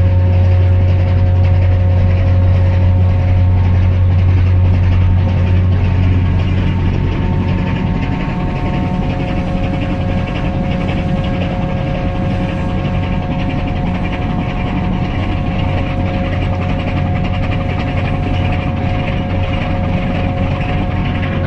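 A ferry's engines droning steadily: a deep hum with a few steady higher tones over a rushing noise. It eases slightly about seven seconds in.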